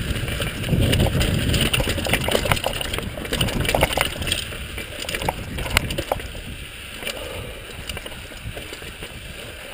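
Mountain bike rolling fast down a rocky dirt trail: tyres crunching over rock and loose dirt, with the bike's parts rattling and knocking over the bumps. It gets quieter in the last few seconds as the bike slows.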